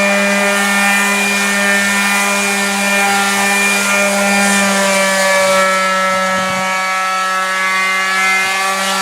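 Electric power sander running steadily on wood: a constant motor hum with a hiss from the sanding pad, its pitch drifting slightly in the second half.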